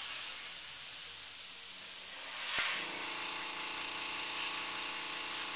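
Airbrush hissing steadily as it sprays white highlights onto painted rivets. About two and a half seconds in there is a click, after which a steady hum joins the hiss.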